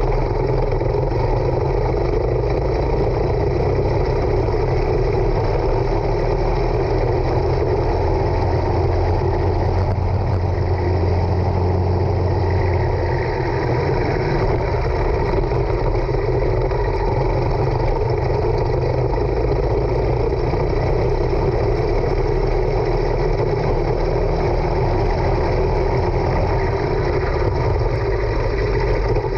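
Racing kart engine running hard, heard from a camera mounted on the kart, loud and unbroken. The revs rise and fall as the kart accelerates out of corners and slows for them.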